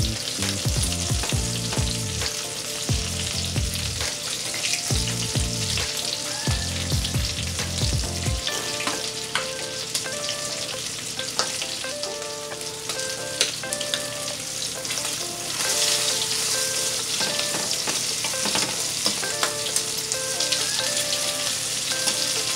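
Breaded shrimp sizzling as they fry in hot oil in a skillet, turned now and then with a fork, with quiet background music underneath.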